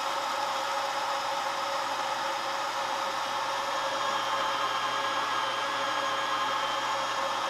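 Milky Plant plant-milk maker's motor running steadily through its brewing cycle, blending soaked cashews with water: a loud, even whir at a constant pitch.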